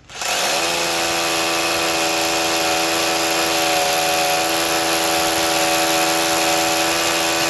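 Bosch 18V SDS rotary hammer drilling a 5/8-inch hole: the motor spins up just after the start, then runs loud at a steady pitch.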